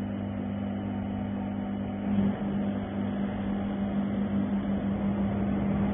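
Laser welding machine giving off a steady electrical hum over a rushing noise, which grows louder and rougher about two seconds in.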